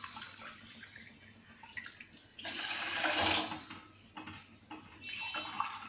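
Water poured from a tumbler into a pot: one main pour of about a second, then a shorter, quieter splash near the end.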